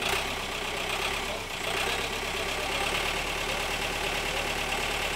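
Engine running steadily at idle, an even, unbroken drone.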